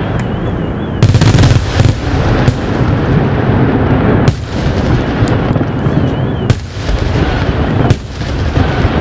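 Aerial fireworks shells bursting at the close of a display: heavy booms about a second in and again near four, six and a half and eight seconds, with continuous rumbling between them.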